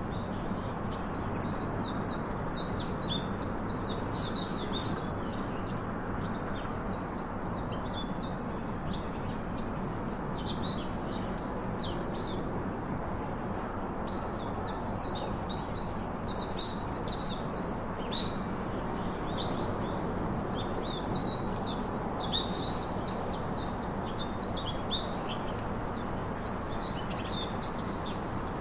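Many small birds chirping in a dense, continuous chatter over a steady background hiss, with a short lull about halfway through. A few sharp clicks stand out in the second half.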